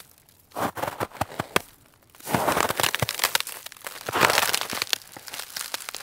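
Snow shovel scraping and crunching through snow in strokes with short pauses between them: a brief crunchy pass about half a second in, then a longer scrape starting about two seconds in and loudest near four seconds.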